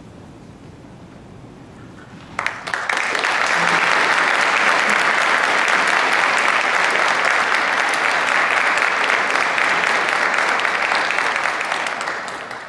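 A hushed room for about two seconds, then a small audience breaks into applause: a few single claps first, then steady dense clapping that fades out at the end.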